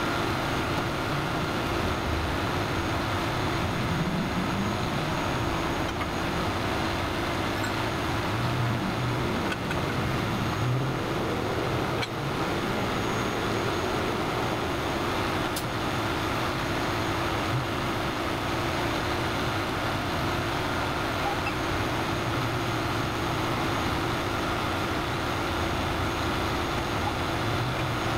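Steady vehicle noise: a heavy truck engine idling close by, with freeway traffic going past.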